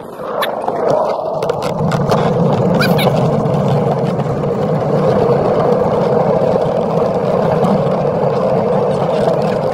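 Gravity luge cart rolling down a paved track: a steady rumble of its wheels under way, with a few sharp clicks and rattles in the first three seconds.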